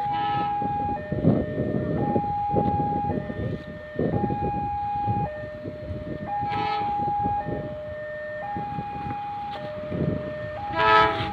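Railway level crossing warning alarm sounding: two electronic tones, a higher and a lower, alternating about once a second without a break. A few short, louder bursts of sound cut in around the middle and near the end.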